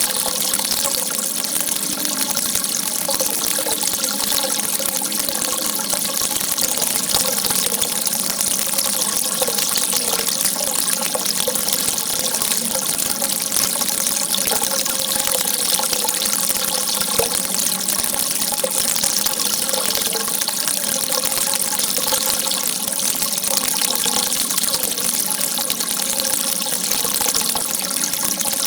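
A jet of water rushing without a break, a steady, even hiss strongest in the high range.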